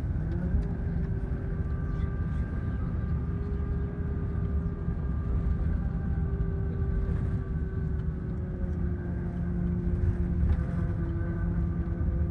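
Intercity bus driving along a road, heard from inside the cabin: a steady engine drone and road noise with a faint whine that drifts slowly in pitch.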